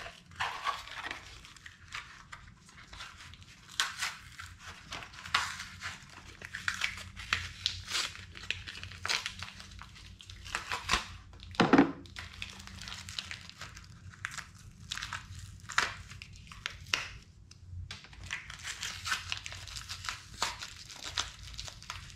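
Packaging wrap crinkling and tearing as new engine balance shaft bearings are cut and unwrapped from it, with one louder knock about halfway through.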